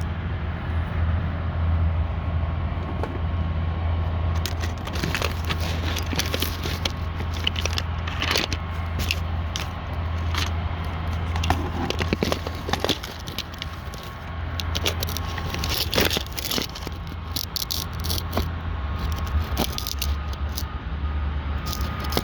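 Handling noise from a phone being set up and positioned to record: irregular clicks, knocks and scrapes close to the microphone over a steady low hum.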